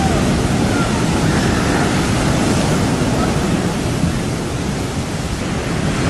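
Heavy ocean surf breaking, a steady, loud wash of wave noise.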